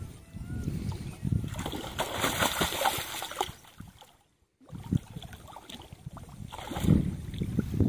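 A hooked fish splashing and thrashing in shallow water at the bank as it is drawn in: a long spell of splashing about two seconds in and more near the end, over a low rumble, with a brief dropout in the middle.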